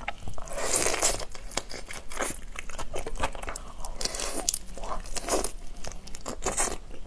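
Close-miked mouth sounds of eating a raw shrimp by hand: wet biting and chewing, with crackles and clicks of the shell being torn, and a longer wet burst about a second in.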